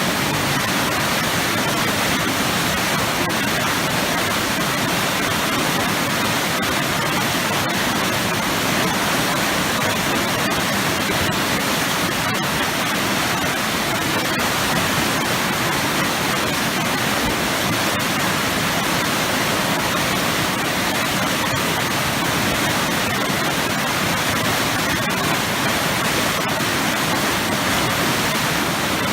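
Waterfall pouring heavily into churning water, a loud, steady rushing roar with no breaks.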